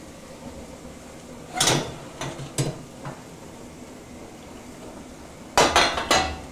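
Metal cookware knocking and clinking: a few separate knocks in the first half, then a louder clatter near the end.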